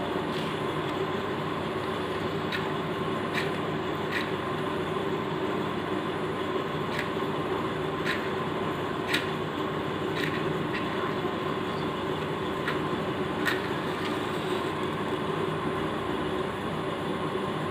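About a dozen short scratches of matchsticks being struck against a matchbox, spaced irregularly through the first three quarters, over a steady machine-like hum.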